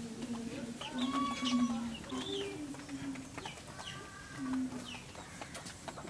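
Chickens clucking and calling, a run of separate calls, some drawn out, one after another.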